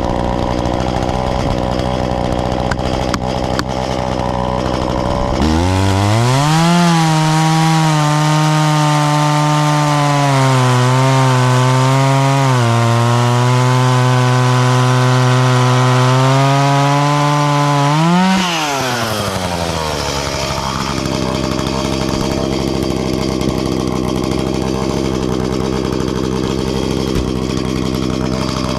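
Two-stroke chainsaw idling, then throttled up to a high, steady run for about twelve seconds, its pitch dipping briefly twice, before it drops back to idle.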